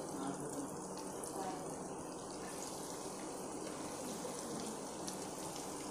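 Breadcrumb-coated potato balls deep-frying in hot oil in a pan, a steady sizzle of bubbling oil.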